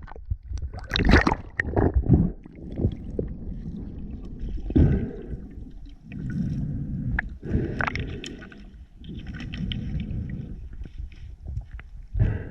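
Water sloshing and splashing close to the microphone in uneven bursts, with scattered clicks and knocks, as a spearfisher moves at the surface.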